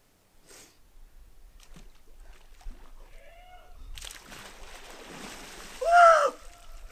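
A man plunging into a small mountain pool: water splashes and sloshes for a couple of seconds, then he lets out one loud short yell that rises and falls in pitch as he stands up in the water.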